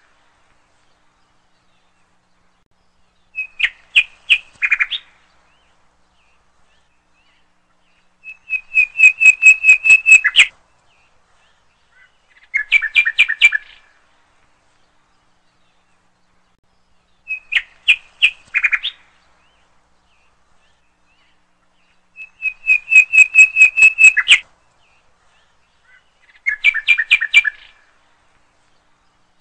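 A bird singing: six short phrases of rapid, evenly spaced chirps, each one to two seconds long, coming about every four to five seconds with silence between.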